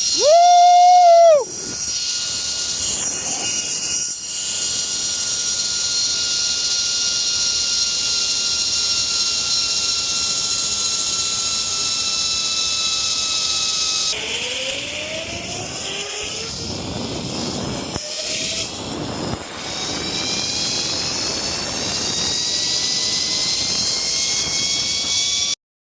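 Zip line trolley's pulley wheels whining as they run along the steel cable at speed, over a steady rushing hiss. The whine is several tones together that sink slowly in pitch, then a new set rises about fourteen seconds in. A loud, high cry fills the first second and a half.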